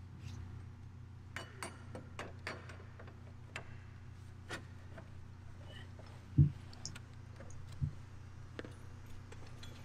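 Light metallic clicks and ticks as a steel turnbuckle form aligner and hammer are handled, with a dull thump about six and a half seconds in and a softer one near eight seconds, over a steady low hum.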